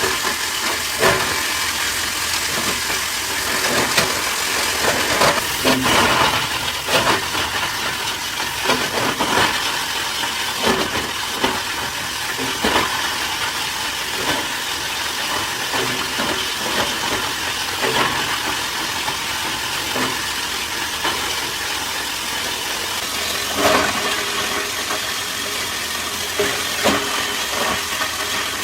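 Recycling-factory machinery running with a steady hiss and frequent irregular knocks and clatters.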